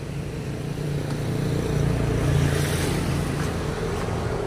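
A steady low motor rumble that swells a little around the middle.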